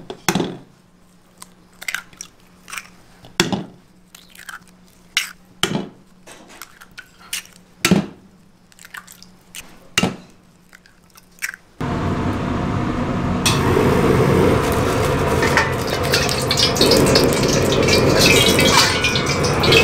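Eggs cracked one after another against the rim of a bowl: a dozen or so sharp taps. About twelve seconds in, a commercial gas wok burner comes in with a steady loud rush under a carbon-steel wok.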